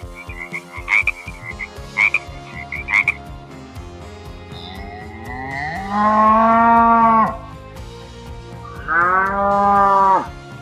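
Cow mooing twice, each moo a long call of over a second, the first about halfway through and the second near the end. Before them, in the first three seconds, a run of short clicky animal calls comes about once a second.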